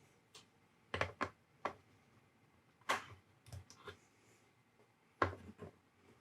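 Flush cutters snipping capacitor leads on a circuit board: a series of sharp clicks at irregular intervals, some coming in quick pairs.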